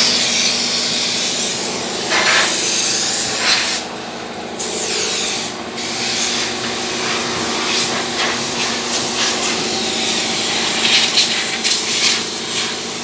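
Compressed air hissing loudly from a hand-held air line over an engine bay, with a steady low hum underneath; the hiss drops out briefly about four seconds in.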